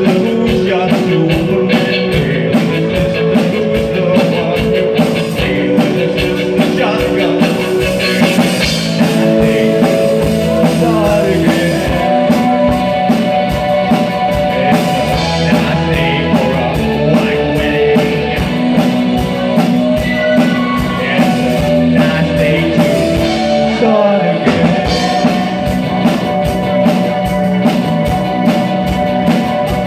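A live rock band playing a new wave song: a male vocalist singing over electric bass, electric guitar, keyboards and a steady drum beat.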